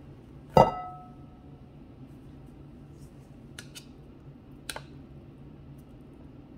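A stainless-steel Thermomix mixing bowl knocks against the rim of a glass bowl about half a second in, with a short ringing clink. A few light clicks follow as a spatula scrapes risotto out of the steel bowl, over a low steady hum.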